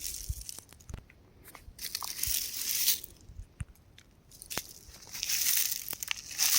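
Rocks crumbling with a gritty crunching and crackling, in two spells: one starting about a second and a half in, and a longer one from near five seconds, with small scattered clicks of falling bits between them.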